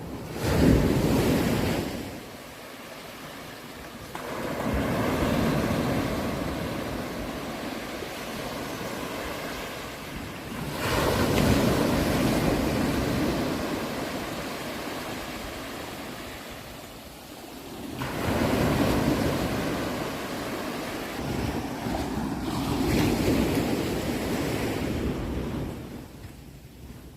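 Ocean surf: waves break and wash in, swelling and easing in long surges every four to seven seconds. The loudest surge comes just after the start.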